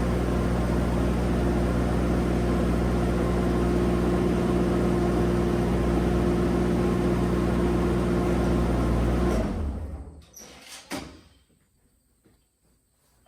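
An engine running steadily at idle, then shut off about nine and a half seconds in and winding down, followed by a couple of sharp knocks.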